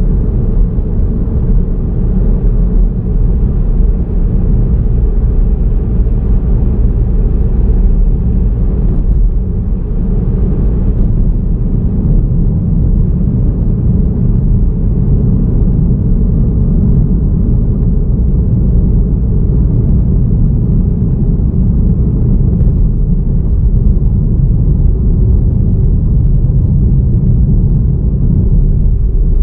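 Steady low rumble of a car driving along a road: continuous road and running noise, heaviest in the low end, with no distinct events.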